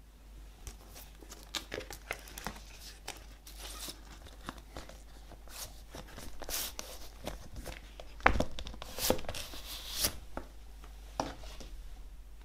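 Record jacket and inner sleeve rustling and scraping in the hands as a vinyl LP is slid out and handled, with a sharp tap about eight seconds in.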